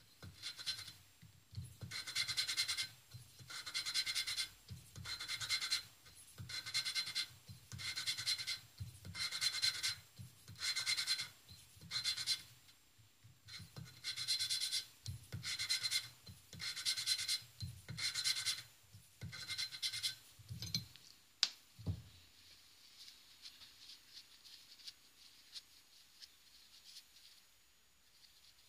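Hand valve lapping on a Suzuki RMZ450 cylinder head: a steel valve twisted back and forth on its seat with a suction-cup lapping stick and grinding paste, making a gritty rasping grind about once a second, some twenty strokes. It is the final lapping to clear the last black marks so the valve seals all round the seat. The strokes stop about two-thirds through, followed by a single sharp knock.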